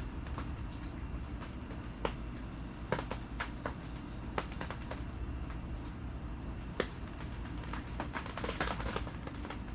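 Crickets trilling steadily at a high pitch, with scattered sharp clicks and taps now and then.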